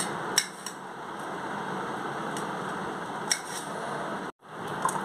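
A few light clicks and clinks of kitchen handling over a steady background hiss; the sound drops out for a moment near the end.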